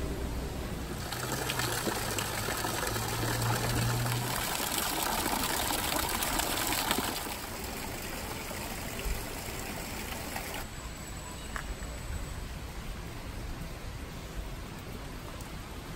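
Rain and running water: a steady wash of falling and trickling water, louder for the first seven seconds or so and softer from about ten seconds in.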